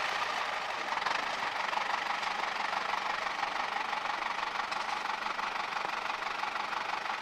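Diesel engine of a small narrow-gauge field-railway locomotive running steadily.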